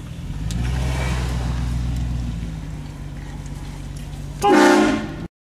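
Car engine running with a low drone, then a short, loud blast from a train horn mounted on the car, lasting about half a second near the end before the sound cuts off abruptly.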